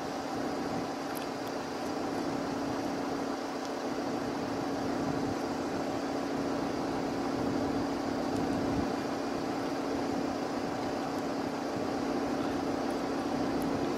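Cessna Citation Latitude business jet on final approach, its twin turbofan engines giving a steady rushing noise with a low steady hum, growing slightly louder as it nears the runway.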